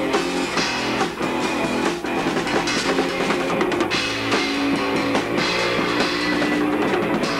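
Rock band playing an instrumental passage: electric guitar and bass over a drum kit with cymbals.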